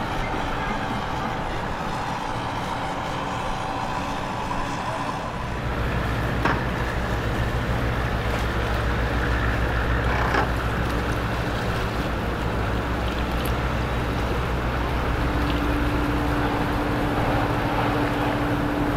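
Large marine diesel engines of a container ship and its tug running steadily, a deep low drone that sets in about five seconds in, with a higher steady tone joining in the last few seconds.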